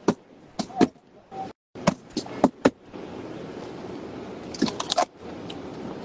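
A run of sharp clicks and knocks from a phone being handled inside a car, followed from about three seconds in by steady car cabin noise, with a few more clicks near the five-second mark.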